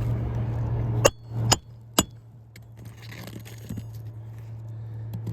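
Three sharp metallic strikes about half a second apart, a second or so in: a hammer driving a nail under a roof shingle with a roofing snake tool. A steady low hum runs underneath.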